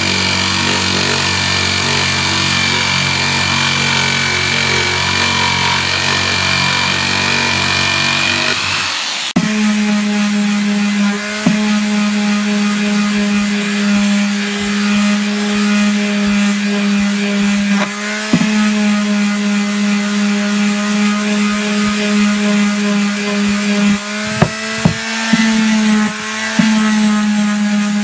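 Electric jigsaw cutting a rounded end on a treated 2x4. About nine seconds in it gives way abruptly to a corded palm sander sanding the cut end with a steady hum, which dips briefly a few times near the end.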